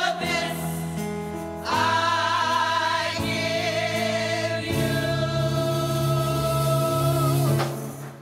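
Gospel choir singing in harmony, holding long sustained chords that change every second or two, with a deep bass note under the last held chord; the singing releases and stops near the end.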